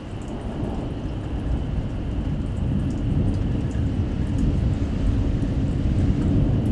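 Severe thunderstorm: steady rain with a low rumbling roar underneath that builds steadily louder, and faint scattered ticks of drops striking.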